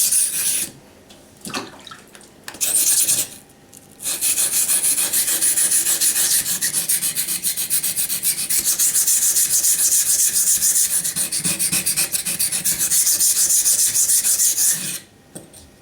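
Steel knife blade ground back and forth on a wet waterstone in quick rasping strokes, grinding chips out of the edge. A few short strokes with pauses come first; from about four seconds in it settles into a steady run that stops shortly before the end.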